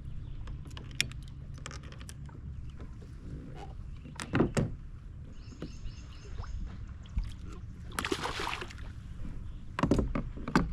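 Knocks and handling sounds on the Old Town AP 136 fishing kayak's hull, with two loud knocks about four seconds in and a cluster near the end. A short rushing noise comes about eight seconds in. All of it sits over a steady low rumble.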